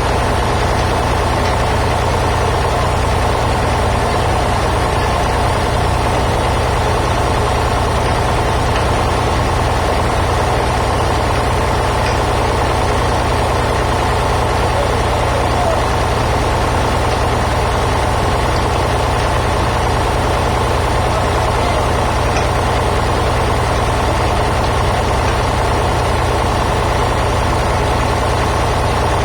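Sawmill band saw and its machinery running steadily: a heavy low engine hum under a steady higher whine.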